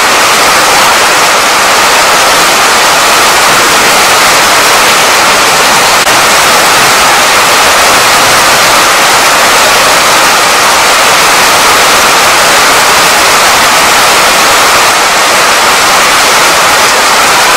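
Heavy rain falling, a loud, steady hiss.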